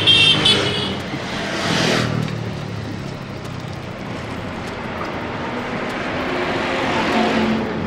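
Road traffic going by: one vehicle swells past about two seconds in and another builds toward the end, over a steady rumble. A brief high-pitched sound comes right at the start.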